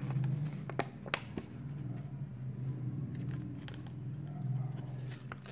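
Folded paper collector's checklist being handled between the fingers, with a few sharp paper crinkles about a second in and light rustling after. A steady low hum runs underneath.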